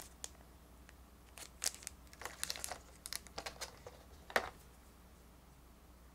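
Clear plastic blister tray crinkling and clicking as it is handled, with the loudest, sharpest click about four seconds in as a metal coin is pried out of its slot in the tray.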